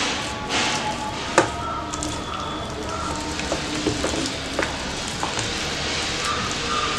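Metal spoon stirring thick gram-flour batter in a stainless steel bowl: a wet, crackly mixing noise, with occasional clinks of the spoon against the bowl, the sharpest about one and a half seconds in.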